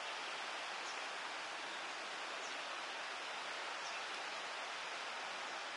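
Steady hiss of surf breaking on a beach, even and unchanging.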